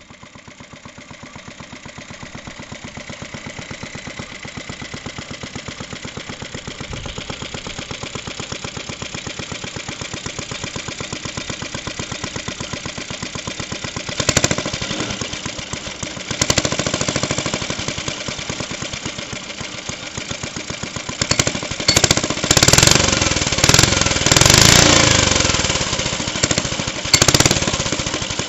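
The Suffolk Punch mower's SIF 75cc cast-iron four-stroke engine running with an even firing beat. About halfway through and several times near the end, the throttle is opened in short bursts and the engine revs up and drops back.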